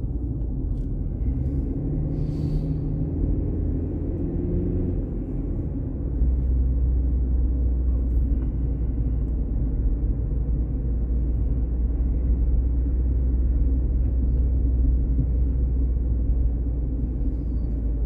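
Steady low rumble of a car driving, the engine and road noise heard from inside the vehicle. It steps up in level about six seconds in.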